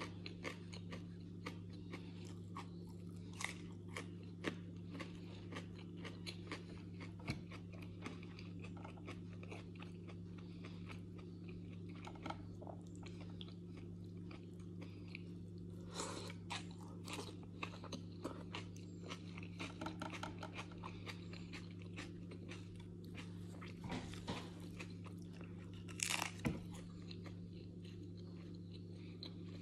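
Close-up chewing and crunching of food, a person biting and chewing beetroot slice, salad and flatbread, with many small crunches and louder bursts of crunching twice. A steady low hum runs underneath.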